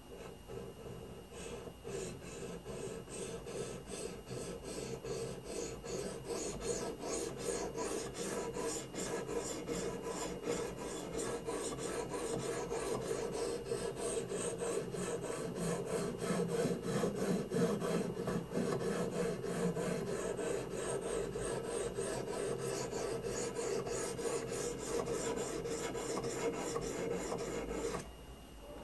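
A coarse 50/40 CBN (elbor) stone on a guided sharpening rig scraping back and forth along a CPR steel knife edge at about a 24-degree angle, in quick even strokes, several a second, which stop abruptly near the end. The stone is working the existing convex bevel to find where it makes contact before the edge is reprofiled.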